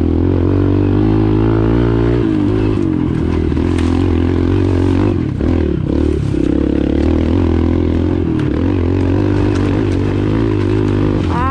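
Kawasaki KLX pit bike's small single-cylinder four-stroke engine running as it is ridden along a rough dirt trail, its pitch rising and falling with the throttle and dipping briefly about five seconds in. Light clatter and knocks come from the bike over the ground.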